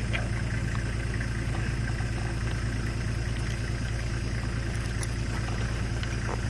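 Truck engine idling steadily just after being started, a low even hum.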